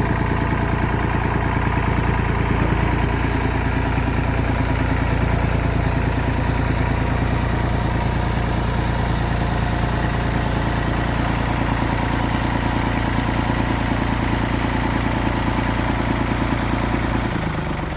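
Massey Ferguson 550 tractor's four-cylinder diesel engine running steadily at low speed, then shut off near the end.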